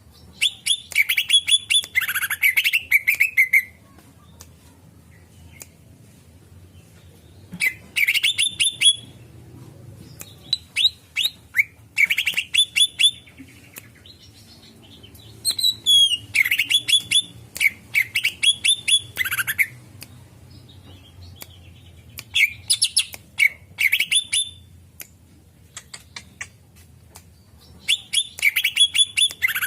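Greater green leafbird (cucak ijo) calling in bouts of rapid chirps and short whistled phrases, about six bouts separated by pauses of a few seconds.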